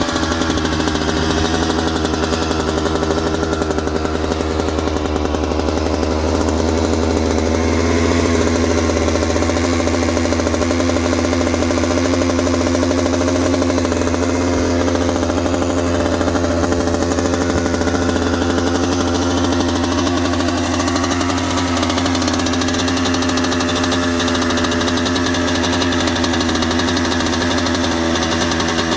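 Kawasaki KX250 single-cylinder two-stroke engine idling steadily as it warms up after a winter cold start.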